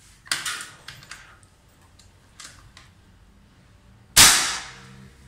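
Fox M22 PCP air rifle in .30 calibre firing one 51-grain slug about four seconds in: a single sharp report that dies away over about a second. Before it come a few clicks and knocks of the rifle being handled.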